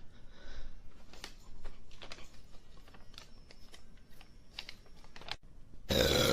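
Scattered faint clicks and light rustling, then a loud burp begins near the end.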